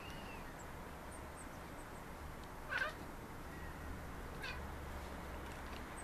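Maine Coon cat chattering at birds: one short high call nearly three seconds in and a fainter, shorter one about a second and a half later.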